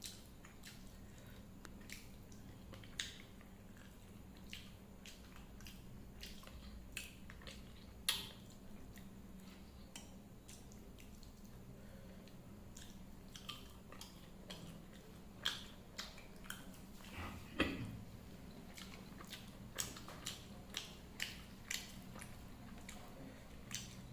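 Close-up eating sounds of a person eating a meal of dal and rice: irregular wet chewing and lip smacks, with louder ones clustered in the second half. A steady low hum runs underneath.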